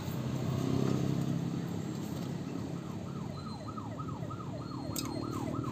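A siren whooping in quick repeated sweeps, about three or four a second, starting about halfway through, over a steady low background rumble.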